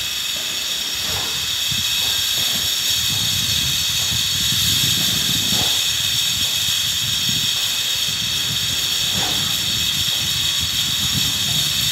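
Vehicle cab noise while driving slowly: a steady hiss over a low engine and road rumble.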